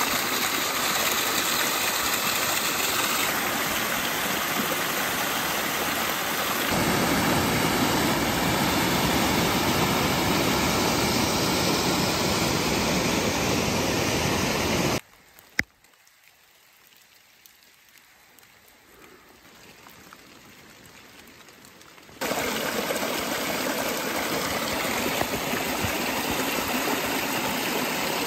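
A small waterfall and cascading mountain creek: a steady rush of water splashing over mossy rocks. About halfway through, the rush cuts off to a much quieter hush for several seconds, with a single click, then comes back just as strongly.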